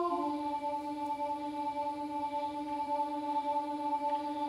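Music notation software playing back a four-part vocal harmony arrangement in synthetic voices, holding one long steady chord.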